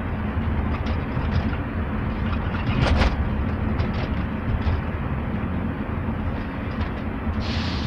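Rear door of a second-generation Toyota Prius (Prius 20) creaking and clicking in short bursts over the steady rumble of road noise inside the moving car's cabin. The loudest creak comes about three seconds in.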